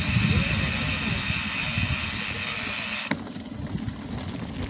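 Wind buffeting the microphone and the rumble of a mountain bike rolling over a dirt trail. For about the first three seconds a steady high hiss rides over it, ending with a click.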